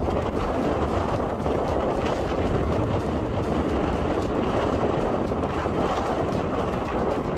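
Strong, sustained wind buffeting the microphone, a steady low rumble with no let-up.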